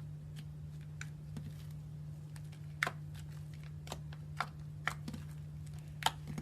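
Slime being handled, giving a dozen or so irregular, sharp little clicks and pops over a steady low hum.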